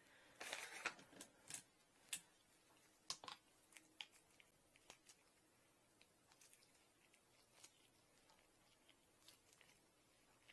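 Near silence with faint, scattered clicks and light taps, plus a brief soft rustle about half a second in, from small metal parts and hand tools being handled while a rotating drain-cleaning nozzle is reassembled.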